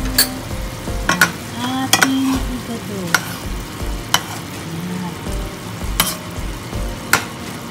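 A metal spoon stirring chunks of pork and liver in sauce in a metal pan, with sharp knocks of the spoon against the pan roughly once a second, about seven in all.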